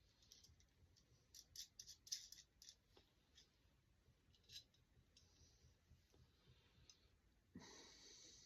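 Near silence broken by faint clicks and taps of a small brass branding iron and its packaging being handled, several close together in the first few seconds and one more in the middle. A short rush of noise comes near the end.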